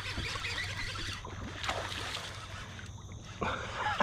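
Water trickling and lapping around a plastic sit-on-top fishing kayak, with light handling noise from the angler while a hooked bass pulls on the line.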